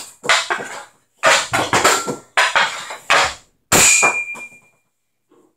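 Hockey pucks being shot with a CCM Heat hockey stick: a quick series of sharp hits, stick blade on puck and pucks striking the net. Near the end the loudest hit is followed by a brief metallic ring, a puck off the metal goal frame.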